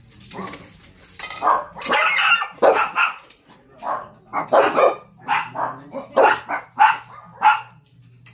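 Small pet dogs barking repeatedly, about a dozen short, sharp barks starting about a second in, as raw ground beef is portioned out for them.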